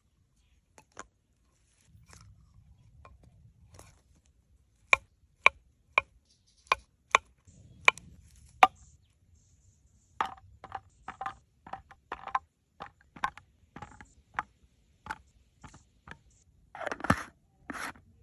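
A series of sharp knocks, about two a second for a few seconds, then softer, quicker knocks, and two longer, louder scraping sounds near the end.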